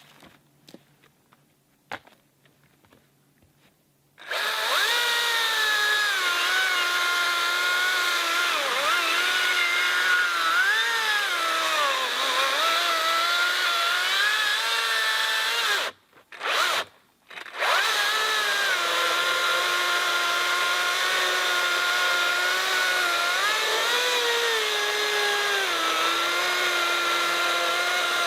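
Makita XCU04 36V cordless chainsaw starting about four seconds in and cutting through a pine log, its electric motor whine sagging and recovering in pitch as the bar takes load. About twelve seconds later it cuts out twice in quick succession, then runs on.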